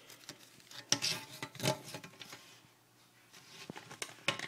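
A handful of light clicks and taps from small objects being handled on a kitchen counter. The loudest comes about a second in, with a quiet pause later on and a couple of small ticks near the end.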